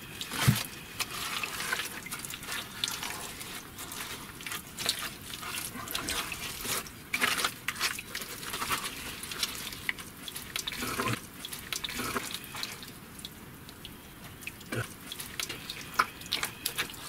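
Gloved hand digging and scooping through waterlogged mud, squelching and splashing in irregular wet slaps and clicks, with a louder slap about half a second in.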